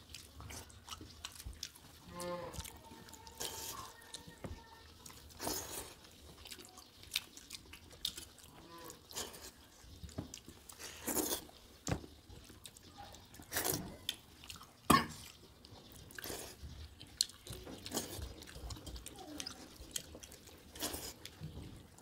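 Close wet chewing and lip smacks of two people eating rice soaked in water with fried onion by hand, with irregular small clicks and squelches from fingers working the watery rice on steel plates.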